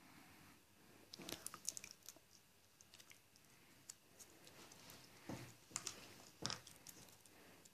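Faint clicks and crinkles of fingers handling a tiny plastic doll and its accessories, in two short clusters: about a second in, and again around five to six and a half seconds in.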